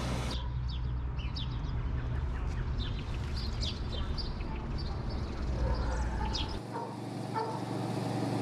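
Small birds chirping outdoors, many short high chirps over a steady low rumble. About six and a half seconds in, the chirping gives way to a plainer outdoor background hum.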